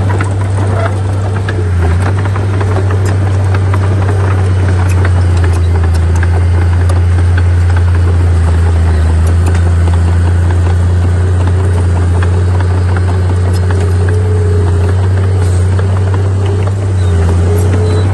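Heavy diesel earthmoving machinery running steadily, a deep engine hum throughout with scattered metallic clanks and rattles.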